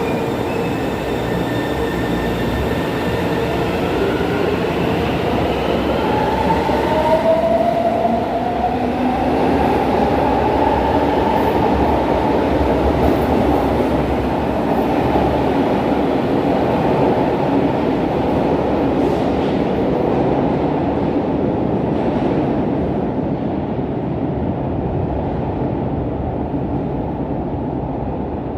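São Paulo Metro Red Line train running on the rails, with a rising electric motor whine a few seconds in as it accelerates. After that comes a steady rumble of wheels and running gear, whose higher, brighter part dies away over the last third as the train goes into the tunnel.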